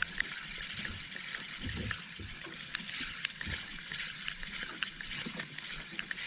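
Steady hiss of sea water with many scattered small clicks.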